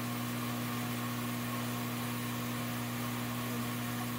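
A steady machine hum, a motor running at one unchanging pitch under an even hiss.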